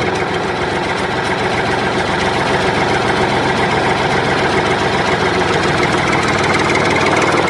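An engine idling steadily, then cutting off abruptly near the end.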